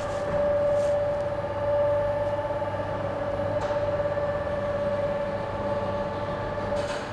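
Crematorium coffin lift raising a coffin on its rail platform, running as a steady mechanical hum with a high whine; it stops shortly before the end.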